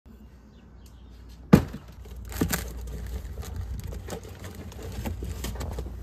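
A sharp knock about a second and a half in, then clicks, rattles and rustling as a refrigerator is opened and the containers on its shelves are moved, over a steady low hum.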